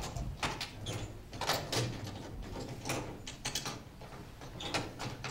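A run of irregular knocks, scrapes and rattles from a wooden animal travel crate as its door latches are worked and an eagle turns around inside it on its way out.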